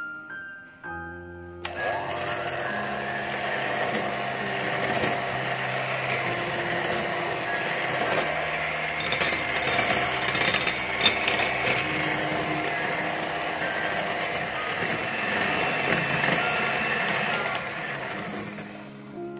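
Electric hand mixer switched on about two seconds in, its twin beaters whirring steadily through egg whites and sugar in a bowl, with a few clicks in the middle as they knock about; it stops near the end. Soft piano music plays under it.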